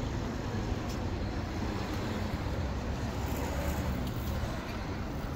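Steady city street traffic noise: a continuous low rumble of road vehicles with no single event standing out.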